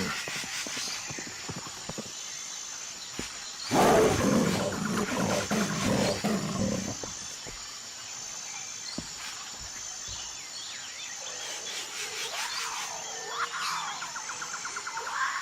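A large animal's deep roar starts suddenly about four seconds in and lasts some three seconds. Fainter high calls rise and fall near the end.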